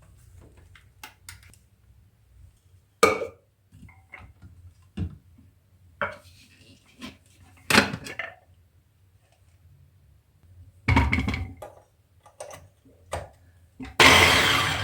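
Kitchen items being handled and set down: scattered clicks, knocks and clatter, with sharper knocks about 3 and 8 seconds in and a louder, longer rush of noise near the end.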